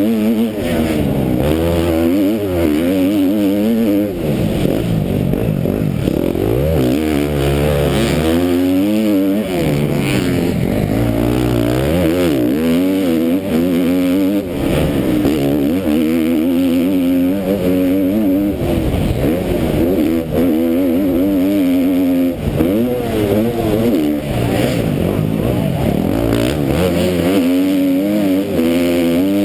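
KTM MX2 motocross bike's engine racing at full throttle, revving up and falling back again and again every few seconds as the rider accelerates and backs off through turns, heard from the rider's helmet.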